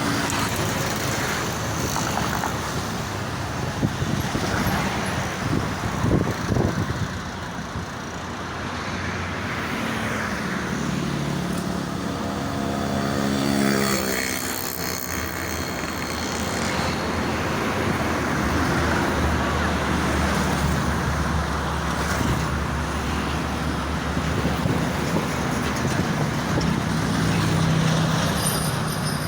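Steady toll-road traffic noise, with vehicles passing continuously; about halfway through, one engine, likely a heavy vehicle, grows louder and its pitch shifts as it goes by.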